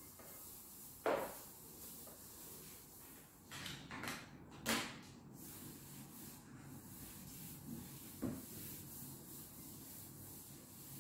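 Household cleaning by hand: a few sharp knocks and taps of objects being set down or bumped on a table, the loudest about five seconds in, over faint rubbing of a cloth wiping the tabletop.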